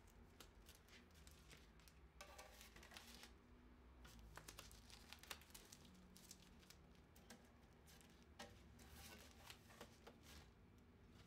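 Faint rustling and light taps of stacked matted art prints being handled and slid into a red oak crate, over a low room hum.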